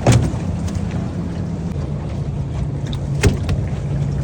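Boat motor running with a steady low hum, with two sharp knocks: the louder one right at the start, the other about three seconds in.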